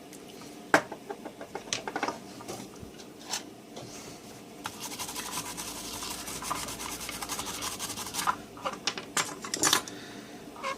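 Soldered joints on a circuit board being scrubbed clean: scattered small clicks and taps, then a few seconds of rapid rubbing strokes from about halfway in, and more taps near the end.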